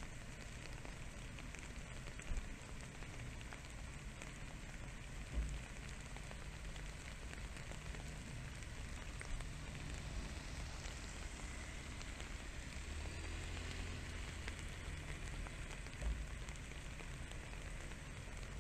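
Steady faint crackling patter with four short, soft low thumps spread through it.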